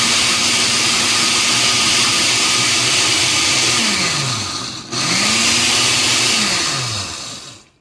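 Blender motor grinding Flamin' Hot Cheetos into crumbs, run in two spells. The motor winds down about four seconds in, starts again a second later, runs briefly and winds down again near the end.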